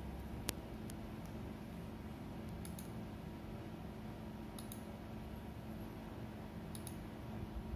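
Computer mouse clicks: a single sharp click about half a second in, then three pairs of quick clicks spaced about two seconds apart. Under them runs a steady low hum.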